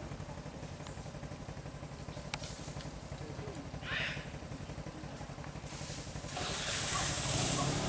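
Motorcycle engine idling with a steady, fast low pulse. A short higher-pitched sound comes about four seconds in, and a hiss builds over the last two seconds.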